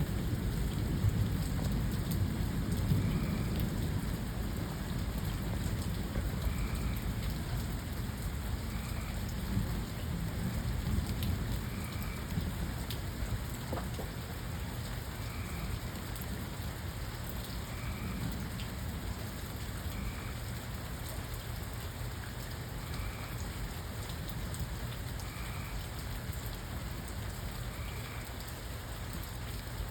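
Steady rain with a low rumble of thunder that fades away over the first half. A faint short chirp repeats about every two seconds.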